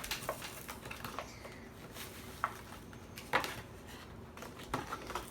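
Scattered light clicks and rattles of plastic toy packaging being handled and opened, at irregular moments, the loudest about three and a half seconds in.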